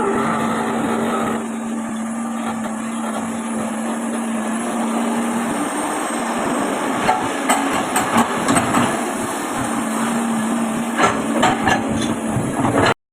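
Komatsu PC200 excavator's diesel engine and hydraulics running with a steady drone. Partway through comes a series of sharp metallic clanks and knocks. The sound cuts off abruptly near the end.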